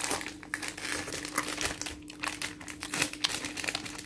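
Crinkling of a Magnum ice-cream bar's foil wrapper being handled, a run of irregular crackles, over a faint steady hum.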